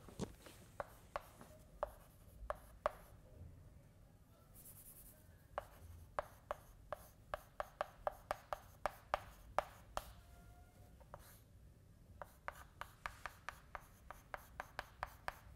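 Chalk writing on a blackboard: runs of quick, sharp taps and scratches as symbols are written, with two short pauses between runs.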